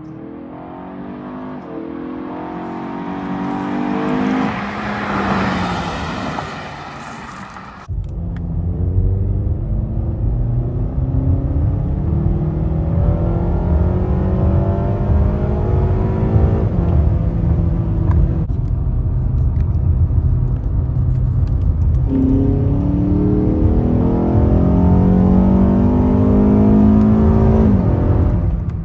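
Acura TLX with an aFe Takeda cold-air intake accelerating hard. It is first heard from the roadside as it pulls up the street, then from inside the cabin at full throttle. The engine revs climb to around 5,000 rpm and drop back at each upshift, a few times, with loud intake noise.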